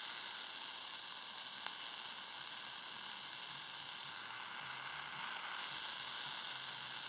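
Shortwave receiver hissing with steady static on the 20-metre amateur band, no voice on the frequency, with one faint click a couple of seconds in.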